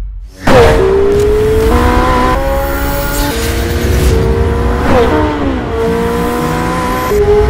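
McLaren W1's four-litre V8 hybrid powertrain running hard at speed, cutting in suddenly about half a second in. The engine note climbs steadily and changes pitch abruptly several times as the gears change, with a sharp dip about five seconds in.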